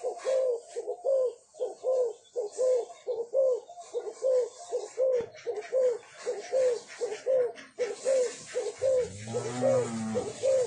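Spotted doves (cu gáy) cooing, a quick repeated series of short notes about two a second, with a deeper drawn-out call about nine seconds in.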